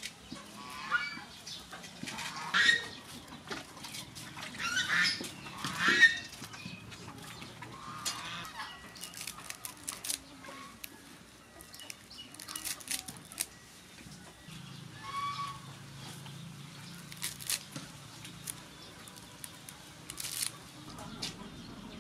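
Chickens clucking and calling in the background, with a cluster of calls in the first several seconds and another about fifteen seconds in. Light clicks of a knife cutting cucumber and greens are scattered through.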